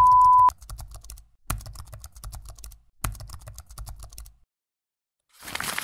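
A steady 1 kHz test tone with the colour bars cuts off about half a second in. It is followed by a computer-keyboard typing sound effect in three quick runs of key clicks, each about a second and a half long. A brief rush of noise starts near the end.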